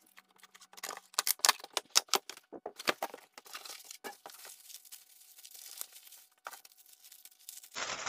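A cardboard shipping carton being cut and torn open with a box cutter, with sharp tearing and scraping sounds loudest from about one to three seconds in. Then quieter crinkling of plastic wrapping as the packed parts are handled.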